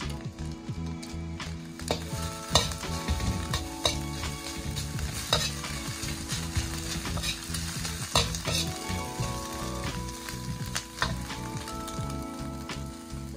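Shredded carrot and scrambled egg sizzling in a hot metal wok while a perforated metal spatula stirs and scrapes them, with sharp clacks of the spatula against the wok now and then.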